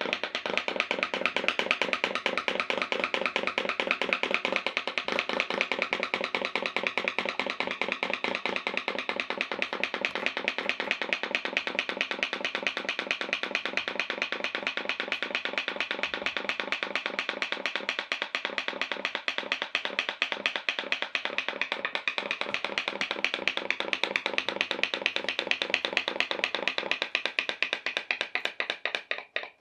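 Pop-pop boat's drinks-can steam boiler, heated by tea lights, putt-putting: a rapid, even run of pops as steam pulses out through its aluminium tubes, slowing to separate pops near the end.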